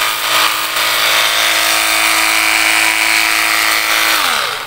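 Cordless 24-volt battery pressure washer's electric pump whining steadily while its jet of rinse water sprays and hisses onto a scooter's bodywork; the pump winds down in pitch and stops near the end.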